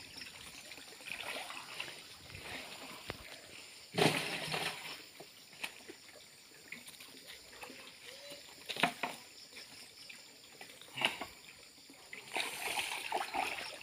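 Shallow muddy pond water sloshing and splashing as a person wades and works a long-handled hand net, with several sharp splashes, the loudest about four seconds in.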